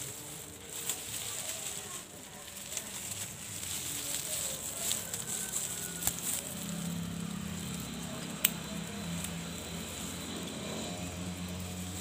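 Leaves and twigs rustling and crackling against a handheld phone as it is pushed through a bush, with scattered clicks and one sharp snap about two-thirds of the way through. A low hum comes in about halfway.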